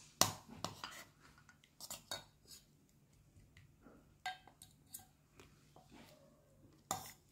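Spoons clinking and scraping against small stainless steel bowls as a food mixture is stirred, in irregular light knocks that are busiest in the first second and sparse after.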